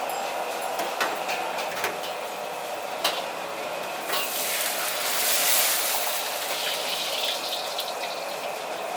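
Wok stir-frying of green vegetables over a high-heat burner: the burner's steady rush, a few sharp clanks of the metal spatula on the wok, and a loud sizzling hiss that swells about four seconds in and dies down about two seconds later.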